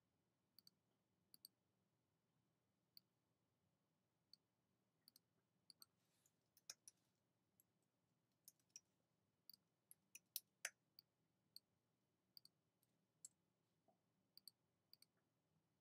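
Faint, scattered clicks of a computer mouse and keyboard, often in quick pairs, with a denser run of keystrokes around the middle.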